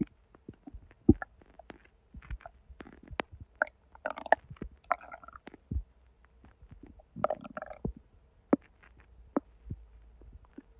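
Human belly gurgles: irregular short pops and clicks, with longer bubbling gurgles about four seconds in and again about seven seconds in. This is digestive activity stirred up by hot sweetened tea in a constipated gut.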